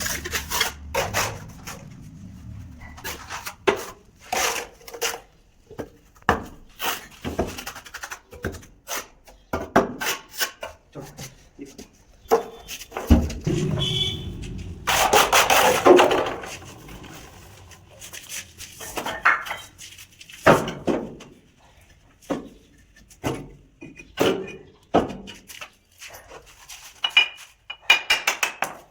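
Wooden shuttering boards and props being handled and knocked into place for a slab's formwork: irregular wooden knocks and clatter, with a longer scraping rub about halfway through.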